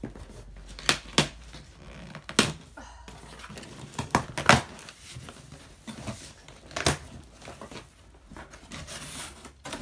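Cardboard shipping box being opened by hand: tape and cardboard ripping and flaps pulled back with rustling, in several sharp rips.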